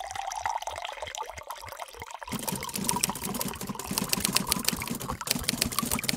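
Red wine poured into a wine glass: a steady splashing trickle that turns fuller and splashier about two seconds in.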